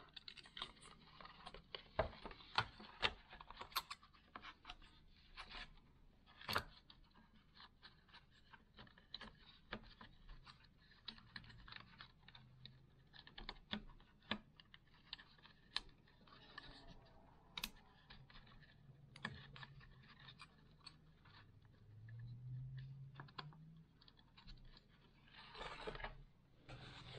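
Plastic housing of a Minelab CTX 3030 control box being handled and pressed together: scattered light clicks, taps and scrapes of plastic, the sharpest in the first few seconds and one about six seconds in.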